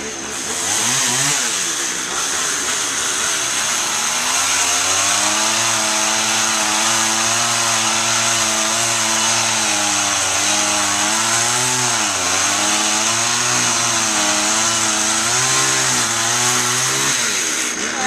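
Gas chainsaw revving up and cutting into a fallen tree limb. Its engine pitch wavers and dips as the chain loads up in the wood, then drops away near the end.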